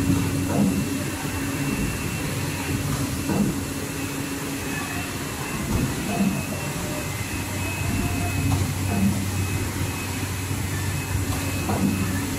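EPE foam sheet cutting machine running with a steady hum and a faint high whine, with a soft low knock about every three seconds.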